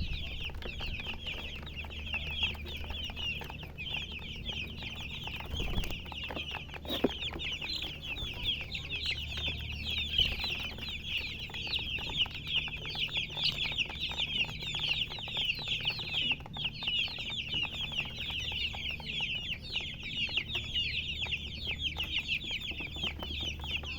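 A flock of chicks peeping continuously: a dense chorus of many short, high chirps overlapping one another, over a low steady hum, with a single knock about seven seconds in.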